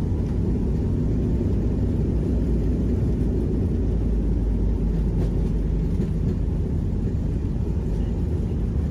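Steady low rumble of a Boeing 737-800 passenger cabin: engine and airflow noise.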